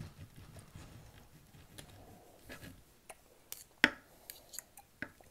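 Quiet eating sounds: soft chewing at first, then a handful of sharp clicks and taps, the loudest a little under four seconds in.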